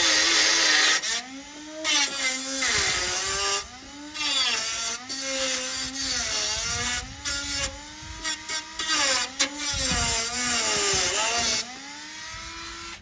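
Dremel rotary tool cutting steel out of a car's inner wing, ready for a new patch of metal. It runs in repeated stretches with short pauses, its whine sagging in pitch as it bites into the metal and rising again, and it stops a little over a second before the end.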